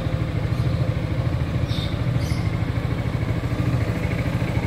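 Yamaha XMAX 250 scooter's stock single-cylinder four-stroke engine idling steadily.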